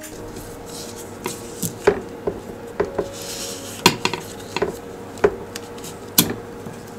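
Irregular sharp metallic clicks and clinks of hand tools against bicycle parts, about a dozen over several seconds.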